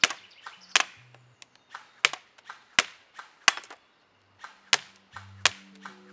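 Arcturus AT-AR07 airsoft electric rifle firing single shots, about seven sharp cracks roughly 0.7 s apart with a pause near four seconds in.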